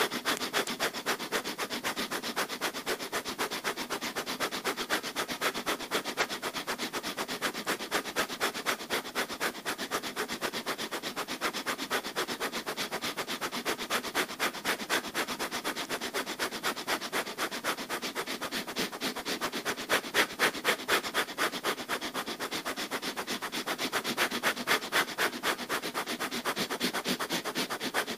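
Breath of fire: rapid, evenly paced forced breaths through the nose, kept up without a break, each exhale a short sharp puff.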